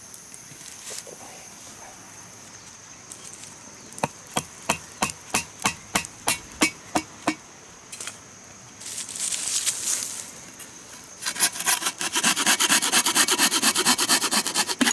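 Hand work on wood: a run of sharp clicks about four a second, then from about eleven seconds in a fast run of rasping strokes like a saw or rasp cutting, over a steady high thin tone.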